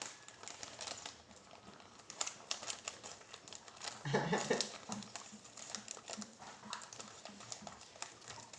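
Scattered light clicks and taps of small plastic candy-kit pieces and utensils being handled on a table, with one short wavering whine-like vocal sound about four seconds in.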